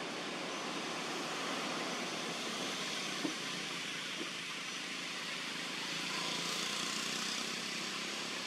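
Steady outdoor background hiss with no clear source, broken by two faint ticks about three and four seconds in.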